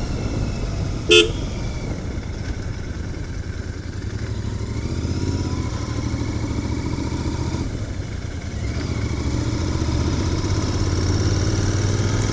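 Royal Enfield Continental GT 650's parallel-twin engine running through its stock exhaust while riding, a steady low rumble that grows a little louder in the second half. A short horn toot sounds about a second in.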